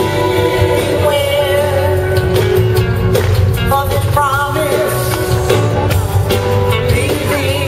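Live band playing an upbeat soul song with a heavy bass line, with a male lead voice singing wavering held notes over it, heard through an arena PA from the audience.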